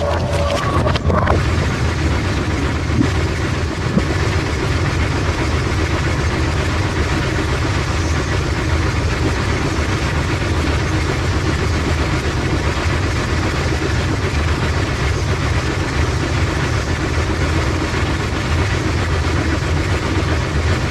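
Automatic bowling pinsetter machinery running with a steady low hum, setting a fresh rack of pins, with a few clanks in the first second or two.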